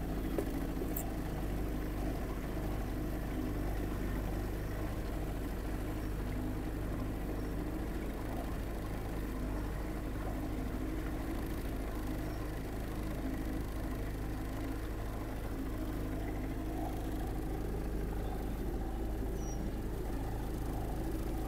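Boat motor running steadily with an even drone while the boat cruises.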